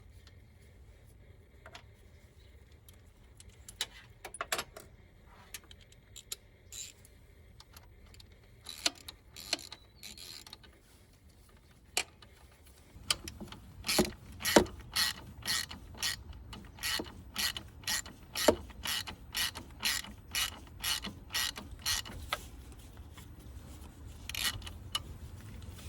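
Hand ratchet wrench clicking in steady back-and-forth strokes, about two a second, starting about halfway through. Before that there are a few scattered metal clicks and knocks of tool work.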